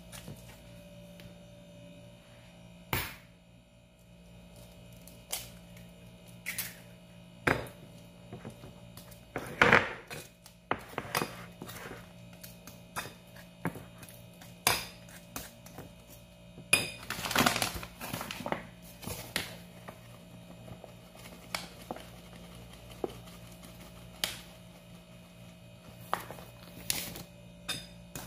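Metal cutlery clinking and scraping against a ceramic bowl as banana is mashed and mixed with egg: scattered sharp clinks, with a busier stretch of scraping a little past halfway, over a faint steady hum.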